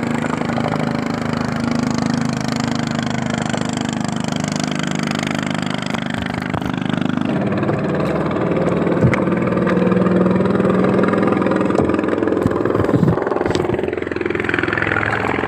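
A small engine running steadily, its note shifting about halfway through, with a few sharp knocks near the end.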